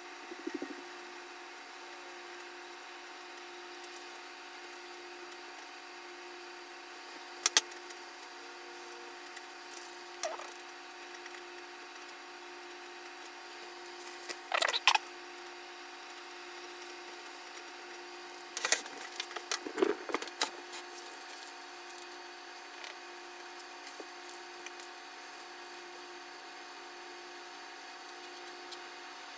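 A steady faint hum under scattered short clicks and knocks of pens and paint markers being handled and put down on a wooden table, coming in a few brief clusters.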